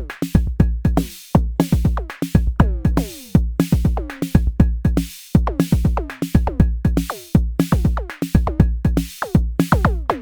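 Arturia DrumBrute Impact analog drum machine playing a pattern of kick, hi-hat and FM drum hits. The FM drum's quick downward pitch-swept hits vary from hit to hit because its track is randomized with the Random function, while the rest of the beat runs unchanged.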